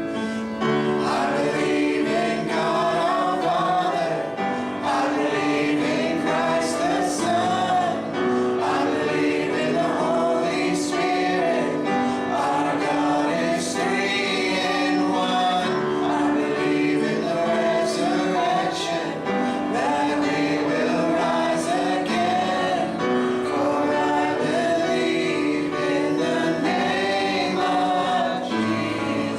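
Congregational worship singing: a choir of men's and women's voices singing a gospel hymn with instrumental accompaniment.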